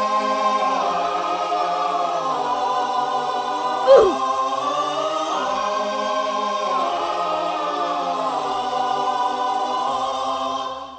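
Choir-like music of slow, sustained vocal chords, with a short, loud sound effect about four seconds in whose pitch drops steeply. The music fades out at the end.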